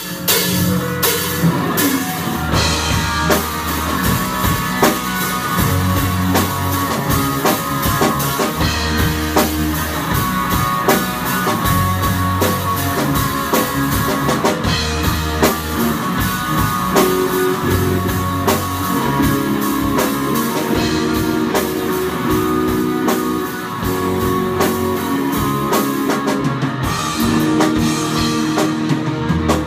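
A rock band playing live in a small rehearsal room: electric guitars over a drum kit, with steady drum strikes throughout.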